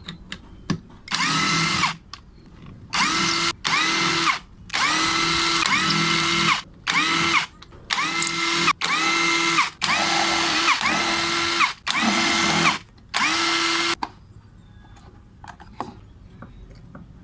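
Electric drill used as a screwdriver on the amplifier's casing screws, run in about nine short bursts with pauses between. Its motor whines up to speed at the start of each burst and holds a steady pitch until the trigger is released.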